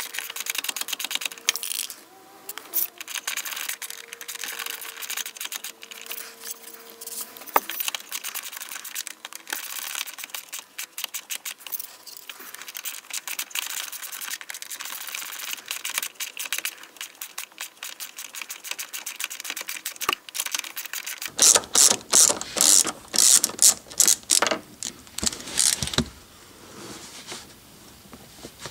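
Hand ratchet clicking as it unscrews a rear spring-seat bolt, the clicks turning much louder about three quarters of the way through.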